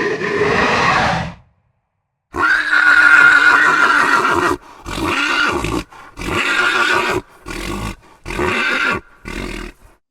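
Unicorn sound effect made of horse-like whinnies: the tail of one call, a pause, then one long whinny about two seconds in, followed by five shorter calls in quick succession.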